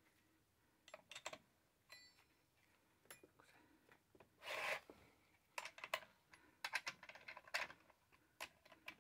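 Faint handling noises: scattered light clicks and taps, with a short rustle about four and a half seconds in.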